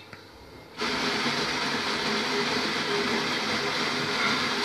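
Venusta automatic bean-to-cup coffee machine starting an espresso cycle: a steady motor whir starts about a second in and holds evenly.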